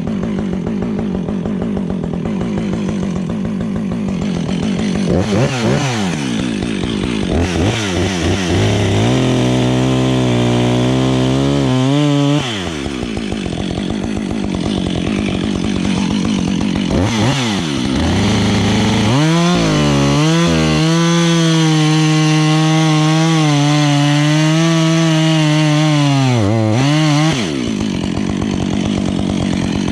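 Husqvarna 555 two-stroke chainsaw at low revs with a few throttle blips, then revved into a short cut, back to idle, and revved again into a long steady cut at high revs before dropping back to idle near the end.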